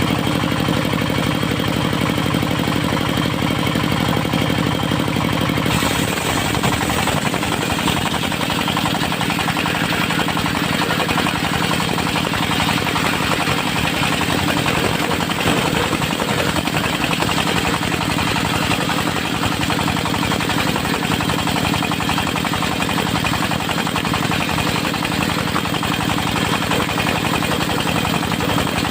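Diesel engine of a portable circular sawmill running steadily with a rapid knock. About six seconds in, the circular saw blade starts cutting into the teak log, and the noise of the cut joins the engine for the rest of the time.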